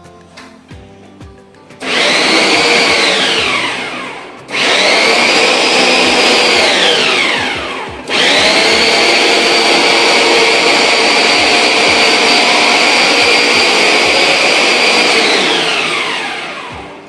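Electric kitchen mixer grinder running in three goes: it whirs up about two seconds in and spins down, starts again and spins down, then runs steadily for about eight seconds before it is switched off and winds down with a falling whine.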